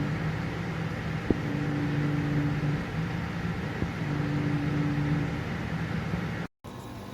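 Inventor Chilly 9000 BTU portable air conditioner running: a steady rush of air with a low hum that swells and fades about every two and a half seconds. Near the end the sound cuts out for an instant and comes back quieter.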